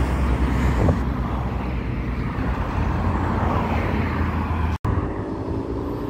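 Road traffic: cars driving past on a road, a steady low rumble of engines and tyres, cut off by a brief dropout about five seconds in.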